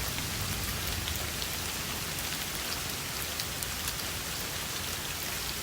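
Steady rain falling, with scattered ticks of single drops.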